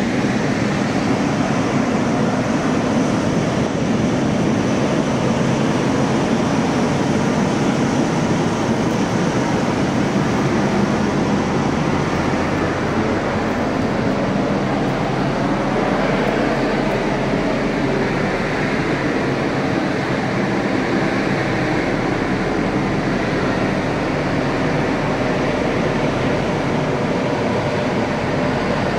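Steady drone and rush of the passenger ferry Ciudad de Sóller under way: engine and machinery noise, even throughout.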